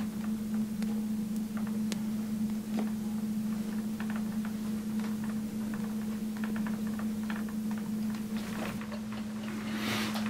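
Steady electrical hum with faint scattered ticks, and a brief burst of handling noise near the end.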